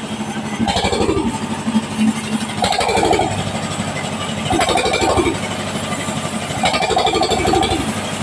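Log sawmill machinery running with a steady mechanical hum, and a louder surge about every two seconds that falls in pitch.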